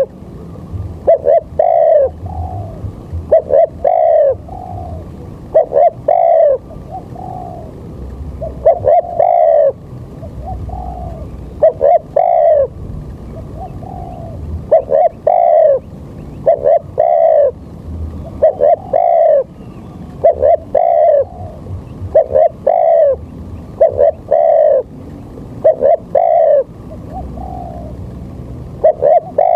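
A bird calling over and over in short, arching notes, grouped in twos and threes about every second or two, over a low rumble.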